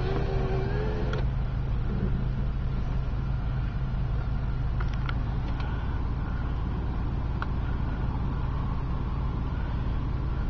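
Steady low rumble of a car running, heard from inside the cabin, with a few faint ticks.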